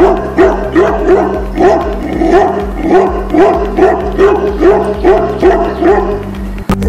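Tibetan Mastiff barking repeatedly, a steady run of deep barks about two or three a second, over background music.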